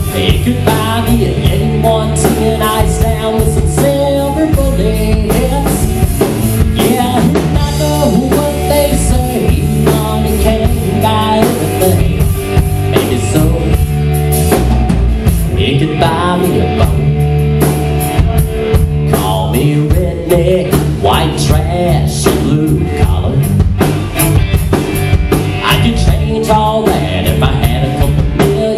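Live rock band playing loud: electric guitar, electric bass and drum kit keeping a steady beat.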